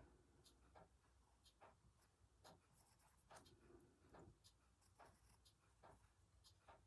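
Faint pencil strokes scratching on paper, a string of short irregular marks as small music notes are drawn and filled in.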